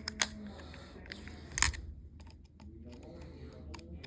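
A few light clicks and taps from a plastic toy walkie-talkie being handled, the loudest about a second and a half in.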